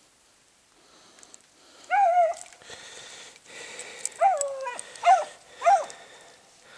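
Basset Fauve de Bretagne hunting hound giving four high yelps: one about two seconds in, then three in quick succession near the end, the first of these three falling in pitch.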